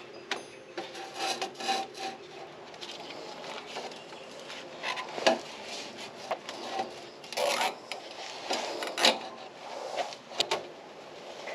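Hands working the rear half-shaft free at a Nissan 350Z's differential: irregular scrapes, rubs and knocks of metal parts being handled, with two sharp clicks near the end.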